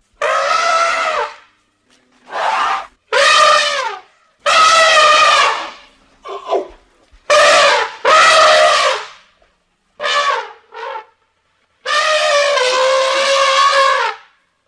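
Elephant trumpeting, used as a Gomphotherium's voice: a run of about ten loud, brassy trumpet calls of varying length separated by short silences, several dropping in pitch as they end. The longest call, near the end, lasts about two seconds.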